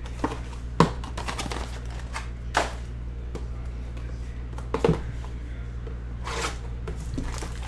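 Cardboard trading-card boxes being handled and opened by hand: a handful of short taps, scrapes and rustles of cardboard and wrapper, over a steady low hum.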